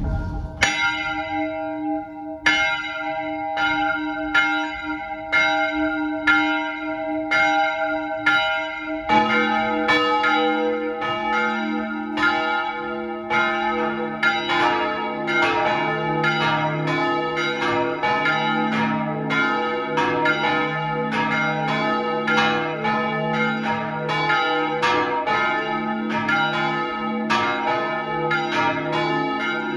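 Swinging church bells tuned to D♯4, G♯4 and F5 ringing together in a test ringing, heard close up inside the bell tower with the louvres shut. One bell starts striking alone about half a second in; about nine seconds in, deeper bells join and the strikes come thick and overlapping.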